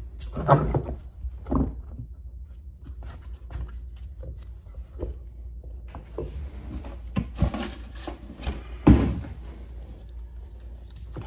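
Hand-sanding a steel knife blade: scratchy sandpaper strokes, with scattered knocks and clicks as the blade and tools are handled on the bench, over a low steady hum.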